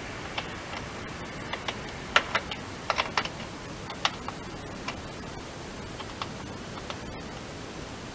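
Small sharp plastic clicks and taps from hands working behind the front wheel-arch liner of a VW Golf IV at the side indicator. They come irregularly, the loudest cluster about two to three seconds in, over a steady hiss.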